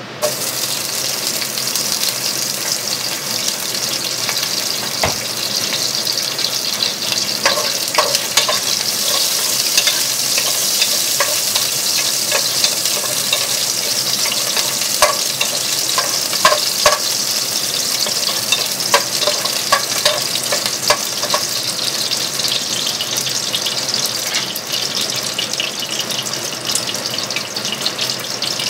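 Whole garlic cloves sizzling in hot oil in a nonstick pan, the sizzle starting suddenly as they go in. A wooden spatula stirs them and taps against the pan now and then in the middle stretch.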